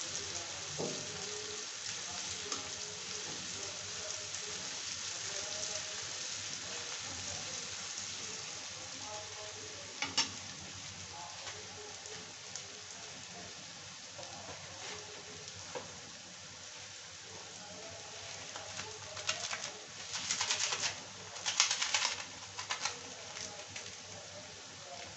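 Chopped onion and tomato sizzling in hot oil in a steel kadhai, a steady hiss that eases after the first third. A few sharp clicks, then a run of clattering scrapes near the end as the steel spatula stirs against the pan.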